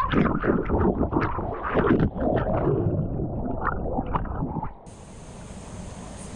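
Rushing, splashing water and rumbling of a ride down a water-park mat slide, loud and irregular. About five seconds in it cuts off suddenly to a quieter steady hiss.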